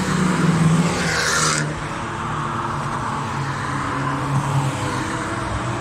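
Car engines running steadily as cars drive past one after another on a race-circuit straight, with a short rushing hiss about a second in.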